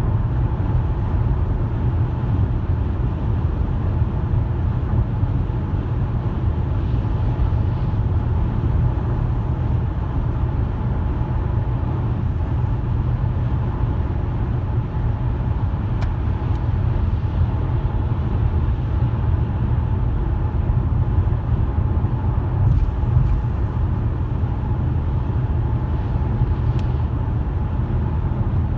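Car driving at steady speed: a constant low rumble of road and tyre noise with a faint steady hum, and a few faint ticks scattered through it.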